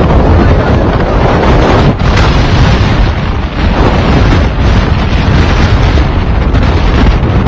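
Strong sandstorm wind blowing hard against the microphone: a loud, continuous low rumble of wind buffeting, rising and falling in gusts.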